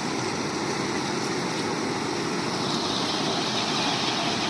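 Waterfall rushing in a steady, even roar of water, running far heavier than normal, swollen by cyclone rain.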